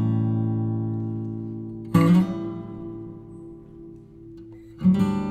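Background music: a guitar strumming chords that are left to ring out, one struck about two seconds in, then a quicker strummed pattern starting near the end.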